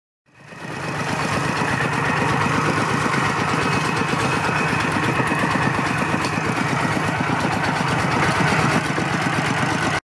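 Two-wheel walking tractor's single-cylinder diesel engine running steadily under way, with an even, rapid chugging beat. It fades in just after the start.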